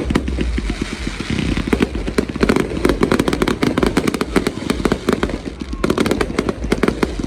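Fireworks going off in a rapid, continuous barrage of many short bangs and crackles, one after another without a break.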